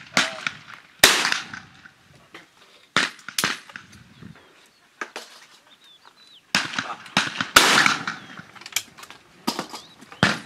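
Over-and-under shotguns firing clay-target shots along a shooting line: a string of sharp shots, two of them close and loud (about a second in and about seven and a half seconds in), the others fainter, each trailing off with a short echo.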